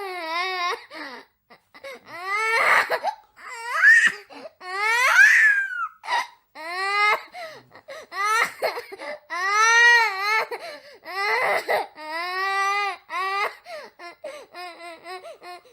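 Crying: a run of high, wavering wails, each about a second long, with short breaks for breath between them.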